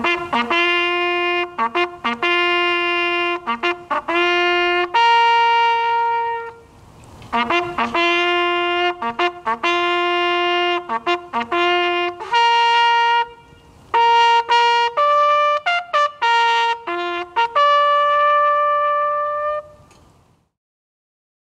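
Solo trumpet playing a bugle call: short repeated notes and held notes on the bugle's few open tones, in phrases with a brief break about seven seconds in, stopping about twenty seconds in.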